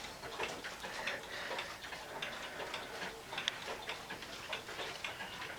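A mechanical clock ticking steadily, with quiet, sharp ticks.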